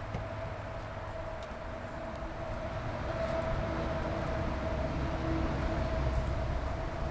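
A steady mechanical drone: a low rumble with a single held mid-pitched tone, slowly getting louder after about three seconds.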